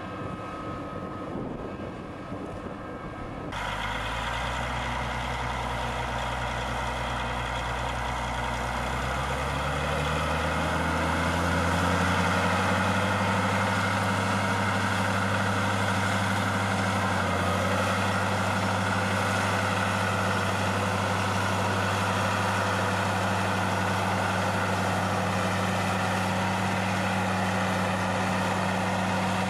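Heavy tractor engine pulling a mounted drainage tile plow. It comes in abruptly a few seconds in, rises steadily in pitch over about eight seconds as it speeds up, then runs at a steady speed.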